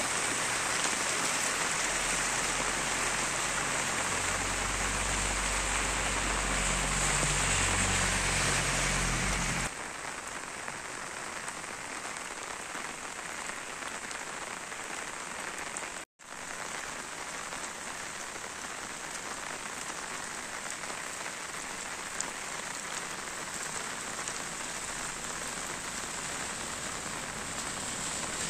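Steady rain falling on wet pavement and flooded ground, louder for the first ten seconds with a low rumble beneath it, then softer. The sound briefly drops out about sixteen seconds in.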